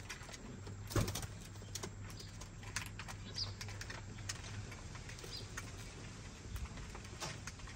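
Fancy pigeons pecking seed from a feeder trough: irregular clicks and taps of beaks on grain and the trough, the loudest about a second in. A low, steady pigeon coo runs under them for the first few seconds.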